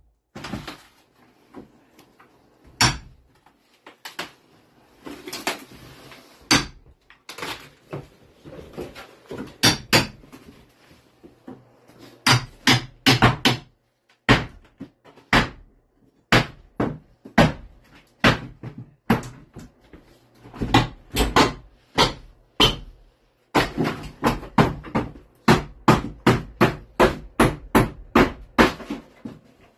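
Hand hammers striking wooden studs and floorboards during demolition: irregular sharp blows, a few at a time at first, then quick runs of several strikes in a row in the second half.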